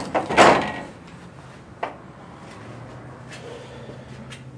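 A short clattering scrape, then a single sharp knock a little under two seconds in, followed by a few faint ticks over a low steady hum.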